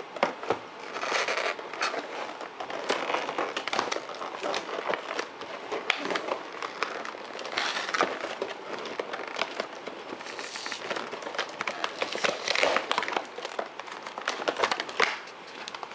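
Toy packaging being opened by hand: plastic and cardboard crinkling and rustling, with irregular clicks and snaps.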